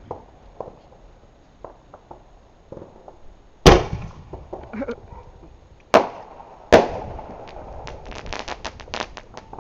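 Fireworks going off: three loud bangs a couple of seconds apart, followed near the end by a quick string of crackling pops.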